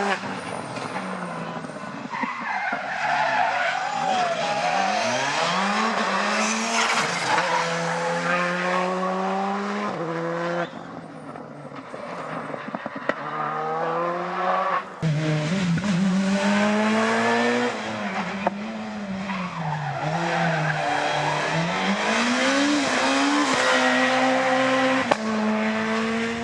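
Rally cars at full attack on a special stage: engines revving high, dropping back on each gear change and climbing again, with tyre squeal. The sound cuts abruptly about fifteen seconds in and goes on with another run of hard revving.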